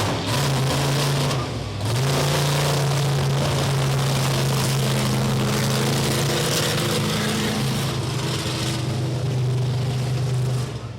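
Monster truck engine held at high revs, a loud, steady note that eases off briefly about a second and a half in, then comes back up and holds.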